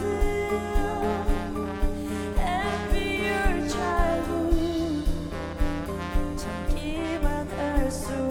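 A woman singing lead into a microphone, with wavering held notes, over a live band playing a steady beat.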